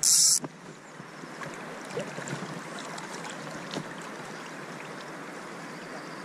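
Steady wash of flowing river water with faint scattered ticks, opening with a brief loud high hiss in the first half-second.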